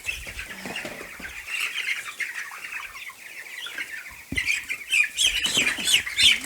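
A crowd of young meat chickens peeping steadily while they are caught and bundled into a bucket, with wing flapping and scuffling among them. The peeping swells in the second half, and a dull knock sounds about four seconds in.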